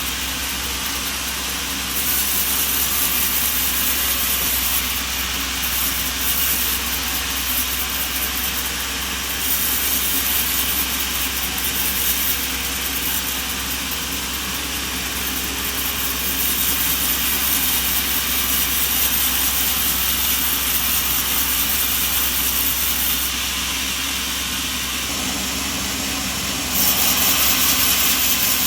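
Machinery running steadily: a continuous hissing whir over a low hum. Its loudness steps abruptly up and down every few seconds.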